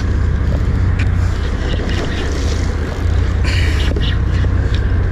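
Loud steady low rumble of wind buffeting the microphone on an open boat at sea, with a short burst of hiss about three and a half seconds in.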